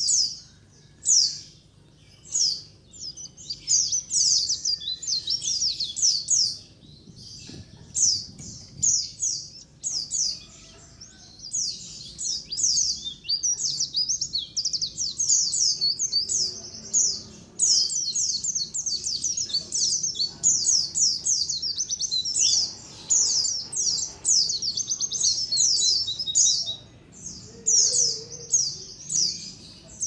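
A flock of white-eyes (pleci) chirping: many short, high calls overlapping in rapid runs, broken by a few brief pauses.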